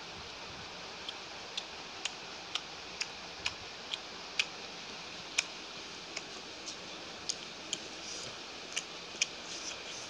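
Fingers mixing rice and mutton gravy on a plate by hand, giving a string of small sharp clicks, about one or two a second, over a steady hiss.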